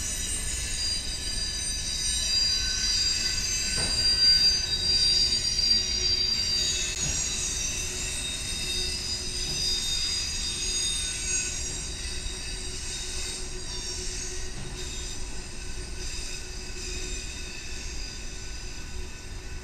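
Freight train rolling past, its steel wheels squealing against the rails in several high-pitched tones that waver and overlap over a low rumble.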